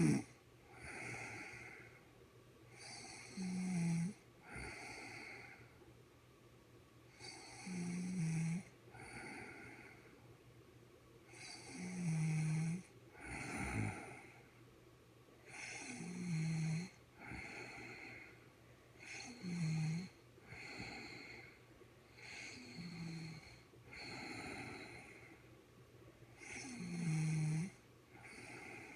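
A woman snoring in her sleep: a low-pitched snore about every four seconds, seven in all, each followed by a softer breath.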